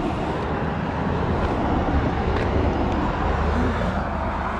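Road traffic noise: a steady rumble and hiss of passing vehicles, easing slightly near the end.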